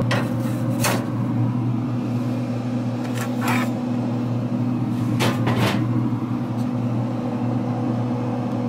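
Pit Boss pellet grill's fan running with a steady hum, with a few short metal knocks and scrapes as a spatula lifts the smoked pork belly off the grill grates onto a cutting board.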